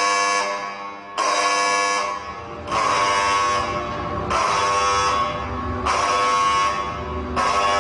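Alarm horn sounding in repeated blasts, each a harsh, many-toned tone that restarts about every second and a half, over a low rumble.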